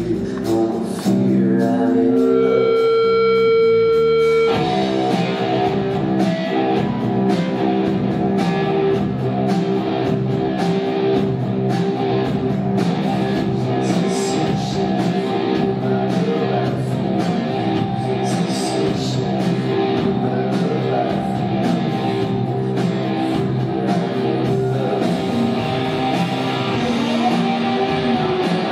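Live rock band playing with electric guitar to the fore. A single held note rings for about two seconds, then the full band comes back in about four and a half seconds in and plays on steadily.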